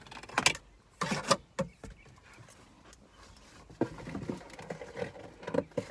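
Rustling and knocking of packaging being handled while a car vacuum is unpacked: a few sharp rustles in the first second and a half, then softer handling, and another run of quick knocks and rustles near the end.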